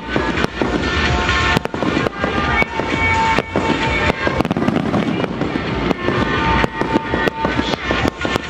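Aerial fireworks bursting in a rapid, irregular series of bangs and crackles, with music playing alongside in sustained notes.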